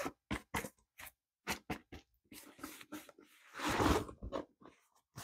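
Crinkling and rustling of a rolled diamond painting canvas with its plastic cover film as it is handled and rolled backwards to flatten it. There is a run of short crackles, then a longer, louder rustle about four seconds in.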